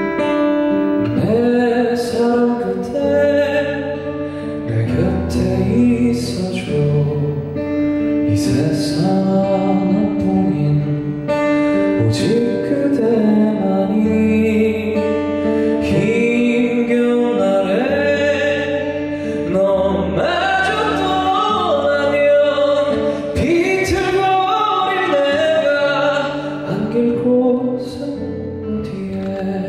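Live pop ballad: a man singing a slow melody over acoustic guitar and a sustained bass line.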